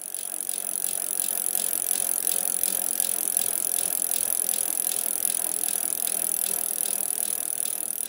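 Bicycle rear hub freewheeling, its pawls ticking in a quick, even rhythm over a steady high hiss. It starts to fade near the end.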